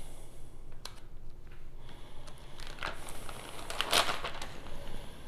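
Clear plastic vacuum-sealer bag crinkling as gloved hands pull its open end apart, in a few short rustles, the loudest about four seconds in.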